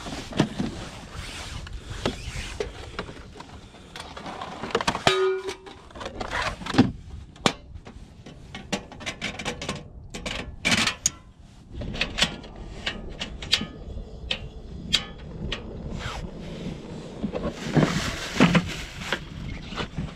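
Handling clatter of a portable butane camp stove: its plastic case opened and a butane canister clicked into place, heard as many scattered clicks and knocks.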